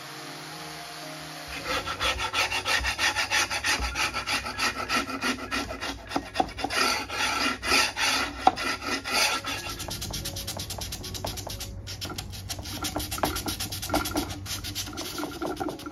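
Sandpaper rubbed back and forth by hand along the edges and corners of a wooden drawer, in quick rasping strokes. It starts about a second and a half in and eases after about ten seconds.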